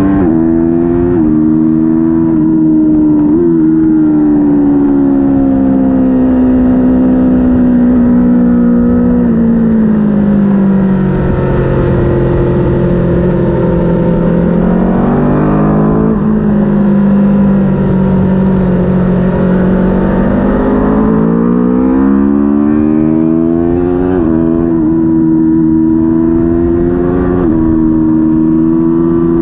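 A racing engine running hard, its pitch rising and falling with the throttle and gear changes. The pitch falls away steadily from about nine to twelve seconds in, stays low for several seconds, then climbs again from about twenty seconds in.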